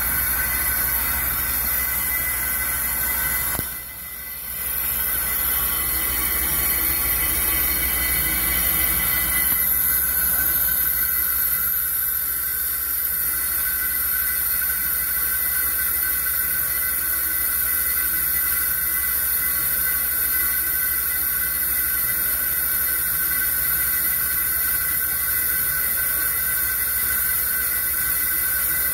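On-car brake lathe spinning a brake rotor on the vehicle's hub while its cutting bits machine the rotor faces: a steady low hum under steady high whining tones. It dips briefly about four seconds in.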